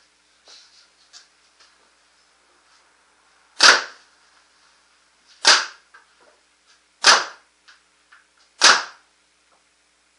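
2011 Dye Proto Matrix Rail paintball marker with a 360 quick exhaust valve, firing reballs on compressed air: four sharp shots about one and a half seconds apart, each with a short ringing tail. Faint small clicks come between the shots.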